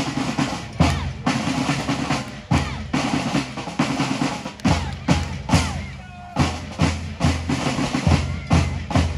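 Snare and bass drums playing a steady beat, with repeated heavy bass-drum hits and snare rolls.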